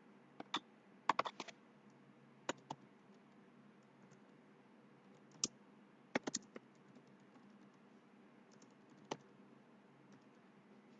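Irregular clicks of a computer keyboard, about fourteen in all, some in quick runs of three or four and others single, over a low steady hiss.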